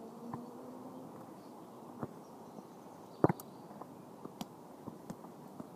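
A football being kicked: a sharp thud about three seconds in, with a few fainter knocks and clicks before and after it over outdoor background noise.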